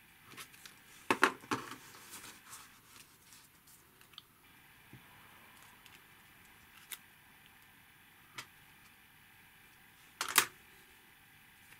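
Handling noise from a 3D puzzle kit: small clicks and crackles as pieces are pressed out of a punched sheet and fitted, with a louder cluster of snaps about a second in and another sharp snap near the end.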